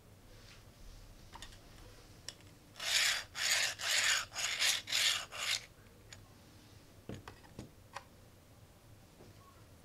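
3D-printed plastic spiral push drill being worked: the sleeve rasps up and down the twisted shaft in six quick strokes, about two a second. A few light plastic clicks and knocks follow as it is put down.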